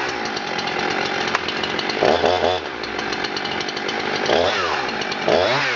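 Husqvarna 350 two-stroke chainsaw running, its throttle blipped up and let back down three times: about two seconds in, about four seconds in, and near the end.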